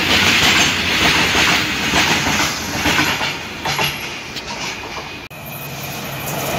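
Freight train of loaded open wagons rolling past, its wheels clattering over the rail joints with a few sharp clicks. The noise fades after about three seconds as the last wagons pull away.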